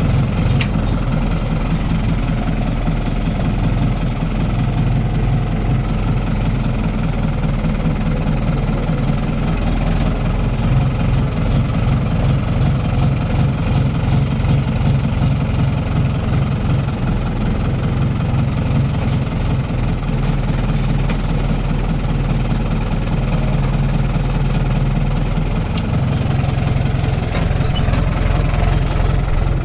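Fiat 70-66 tractor's four-cylinder diesel engine running steadily at working revs while mowing, heard from inside the cab.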